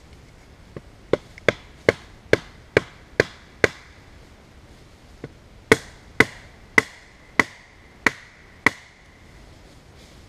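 A small knife chopping into a branch to cut a notch: two runs of sharp strikes, about seven or eight each, a bit over two a second, with a short pause between. The strikes in the second run leave a brief ringing tone.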